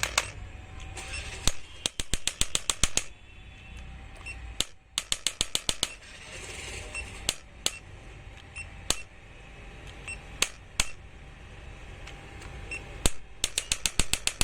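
Electric chiropractic spine adjuster gun firing its impulse head, sharp clicking strokes in three rapid bursts of about ten a second with single strokes spaced out in between. The steady hum of its cooling fans runs underneath.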